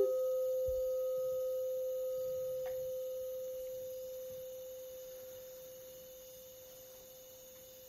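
A single pure ringing tone from a meditation instrument, held on one pitch and slowly fading away over several seconds. A faint tick comes partway through.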